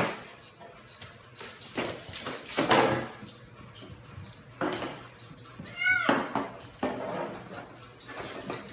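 A kitten with a cup stuck over its head meows once, a short cry falling in pitch about six seconds in. Before that, around two to three seconds in, there is a louder stretch of rustling, knocking noise.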